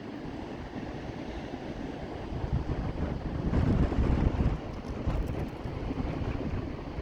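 Ocean surf with wind buffeting the microphone, a steady rush that swells loudest about midway and then eases.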